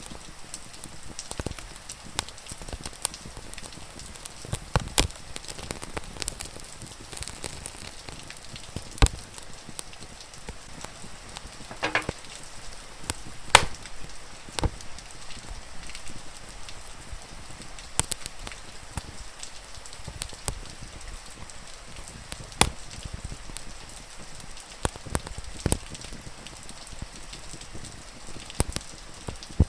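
Wood fire crackling, with sharp pops at irregular intervals, over the steady patter of rain.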